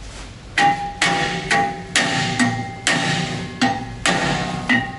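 Hammer blows on a Toyota Tundra's rear brake rotor, about a dozen sharp strikes at two to three a second, each with a metallic ring from the rotor. The rotor is stuck on the hub and does not come free.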